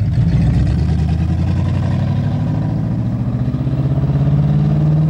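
A car engine running at a steady throttle, its pitch creeping slowly upward.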